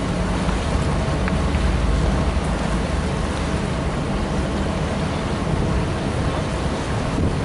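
Gusty wind buffeting the microphone, a steady rumbling noise, with a low, steady hum of ship engines underneath.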